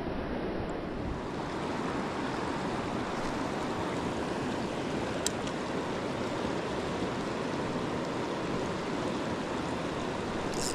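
A rocky mountain trout river flowing and rushing over rocks, a steady unbroken water noise.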